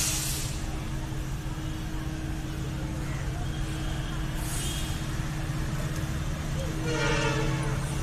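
Approaching WDP4D diesel-electric locomotive, its 16-cylinder EMD two-stroke diesel engine running with a steady low hum. About a second before the end its multi-tone air horn starts to sound faintly.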